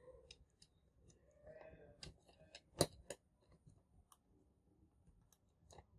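Small plastic clicks and taps as a light-blue plastic part is pressed and worked into a model car's black plastic chassis, with one sharper click near the middle.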